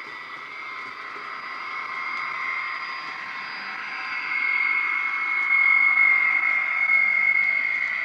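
Model Class 73's HM7000 sound decoder playing its electric-mode sound through the loco's small speaker: a steady whine of several held tones over a light hiss, growing louder from about halfway through as the locomotive approaches.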